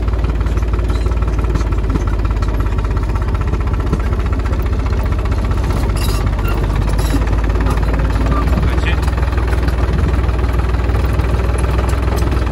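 Crawler tractor's engine running steadily under load as it drives along a vineyard row, heard close up from the driver's seat.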